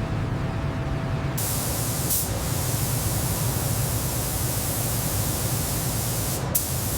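A steady pressurised spraying hiss starts about a second and a half in, over a low rumble, with brief breaks about two seconds in and near the end.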